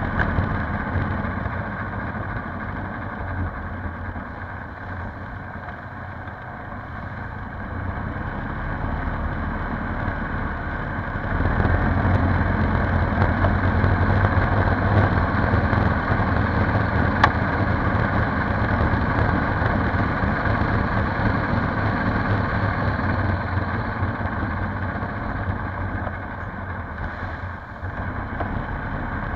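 Polaris Sportsman 570 ATV's single-cylinder four-stroke engine running steadily while riding. It grows louder about a third of the way through, holds there, and eases off near the end.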